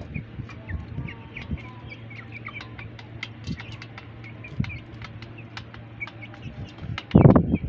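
Young chickens chirping and peeping with many short, high calls while they peck feed from a metal pan, with scattered sharp pecking taps. A loud, short thump comes near the end.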